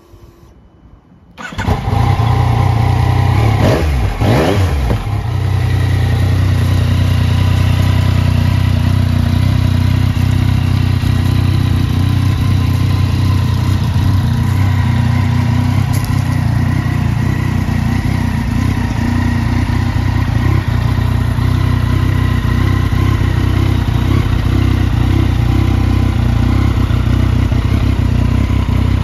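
2017 Yamaha MT-09's three-cylinder engine, through an aftermarket Lextek exhaust, starting about a second and a half in. The revs rise and fall briefly a few seconds after it catches, and it then idles steadily.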